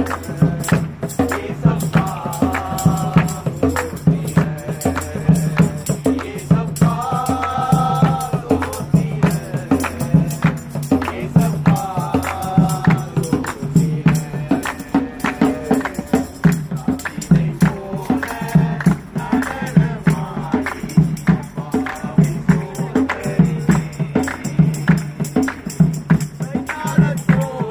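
Live gospel music on the street: a set of three drums beaten in a steady rhythm, with a group singing and clapping along.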